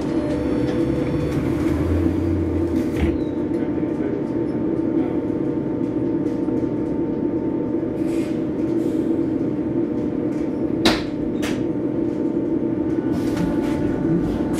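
Cabin noise inside an MBTA trackless trolley bus under way: a steady electric hum over road noise. A single sharp click about eleven seconds in is the loudest sound.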